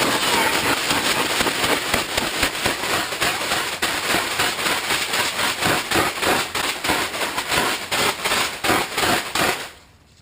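Water spraying onto a tent's fabric, heard from inside the tent: a dense patter of water hitting the fabric that breaks into separate quick spatters over the last few seconds and stops suddenly near the end.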